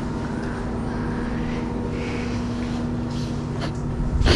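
Steady machinery hum with a constant low tone, and one short knock near the end.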